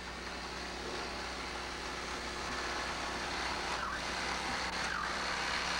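Chainsaw engine running steadily, slowly getting louder.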